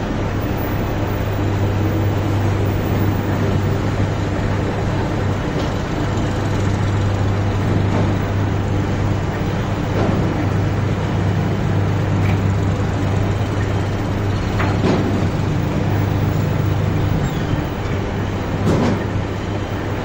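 Steady low engine drone of a tractor hauling a loaded sugar cane trailer, with a few brief sharp clanks.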